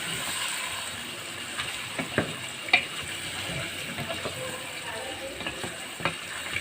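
Chicken with yogurt and masala paste sizzling in hot oil in a pan as it is stirred and fried (the bhuna stage of the curry), with a few sharp knocks of the spoon against the pan.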